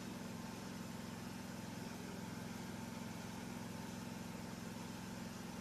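A steady low mechanical hum, like a motor or engine running without change.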